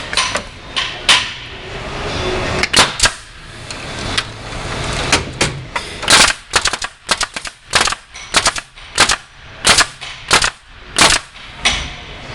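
Hive body assembly machine's fastener drivers firing fasteners into the joints of a wooden hive box: a quick, uneven series of sharp shots, a few at first and then a dense run through the second half.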